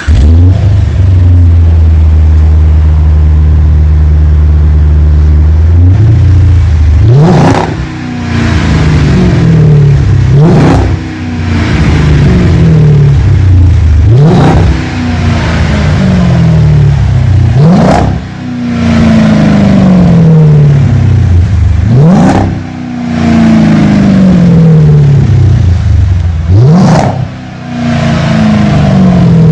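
Jeep Grand Cherokee engine through a sport exhaust with an X-pipe and straight-through mufflers: a steady idle, then six sharp revs, each rising quickly and falling back to idle.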